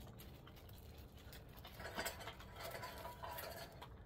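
Dogs eating: faint scattered crunches and clicks, busier from about two seconds in.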